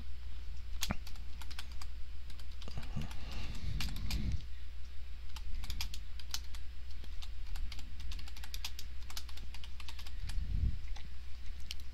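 Typing on a computer keyboard: a steady run of quick keystroke clicks, over a constant low hum.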